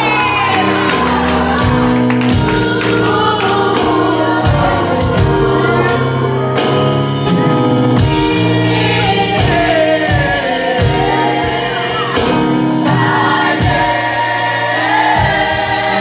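Gospel worship music: voices singing over a band with steady drum hits and held keyboard chords.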